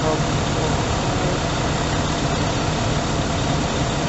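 A large engine idling steadily, a constant low hum with no change in speed.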